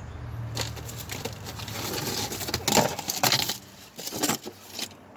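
Irregular metallic clinks and knocks with rustling, as tools and parts are handled during work on a car's transmission. A low steady hum is heard for about the first second.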